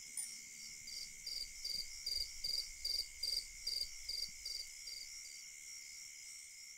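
Steady night chorus of insects, with a run of about a dozen short, evenly spaced chirps, roughly two and a half a second, that starts about a second in and dies away about a second before the end.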